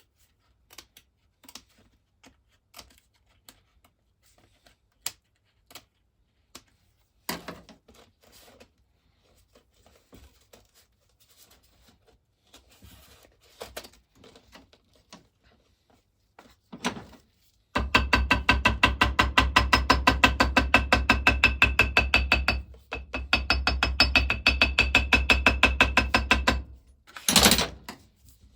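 Faint scattered snips and clicks of scissors trimming a cardboard gasket, then a much louder rapid, evenly pulsed buzzing with a steady pitch for about nine seconds, broken once by a short pause, and a brief loud burst near the end.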